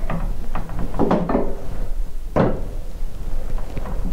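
Irregular clunks, knocks and scrapes of metal parts being handled and set against a snowmobile's metal chassis, with one louder knock about two and a half seconds in.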